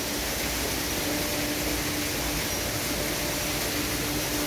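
A motor running steadily, a constant low hum over an even hiss.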